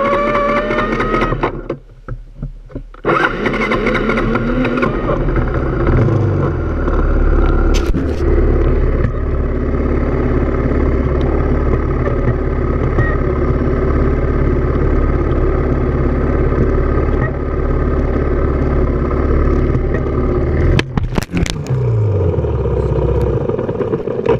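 Off-road motorcycle engine running as the bike rides a rutted dirt track, its revs rising and falling. The engine note drops away briefly about two seconds in, then picks up again.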